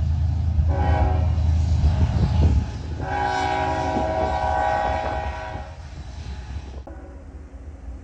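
BNSF freight train rolling slowly with its brakes squealing in several sustained, piercing tones over the low rumble of the train. Two long squeals about two seconds each, then the sound eases and a fainter squeal starts near the end.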